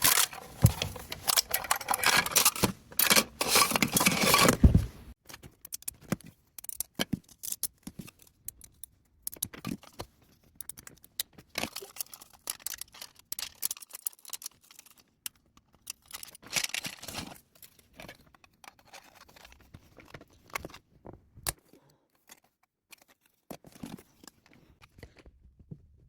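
3D printer's flexible build plate being flexed, the prints crackling and popping loose in a dense run of cracks for about five seconds. After that come sparse, quieter clicks and ticks of printed plastic parts being handled and fitted together.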